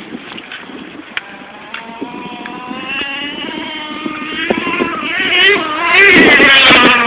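Nitro engine of a Traxxas Revo 3.3 RC truck running at speed, its high-pitched note growing louder through the clip, then wavering up and down as the throttle changes, loudest near the end as the truck passes close.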